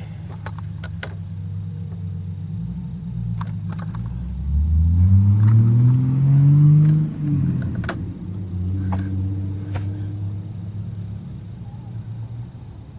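An engine idling steadily, revved up once about four and a half seconds in and dropping back to idle around seven seconds, with a few light clicks.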